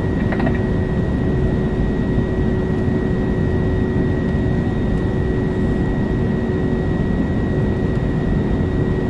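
Airbus A321neo turbofan engines running steadily, heard from the passenger cabin while the airliner rolls on the runway before the takeoff run. It is an even rumble with a constant whine, and the pitch does not rise.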